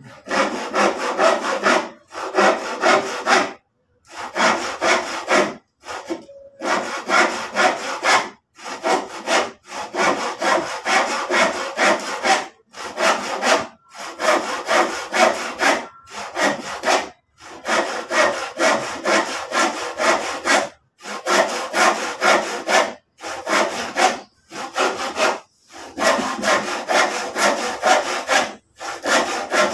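Hand saw cutting through old lumber in quick, rhythmic back-and-forth strokes. The sawing comes in runs of a second or two, broken by brief pauses.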